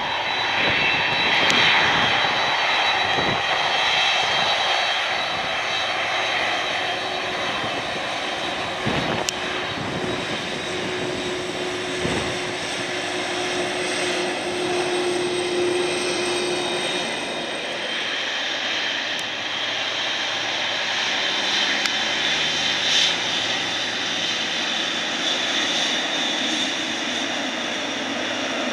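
Jet airliner engines running at low power as the plane taxis on the ground: a steady high-pitched whine over a rumbling hum, with a few dull low thumps in the first half.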